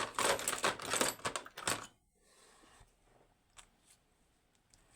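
Small metal lock parts and tools being handled, a dense scraping, rattling clatter for about two seconds. Then a few faint single clicks.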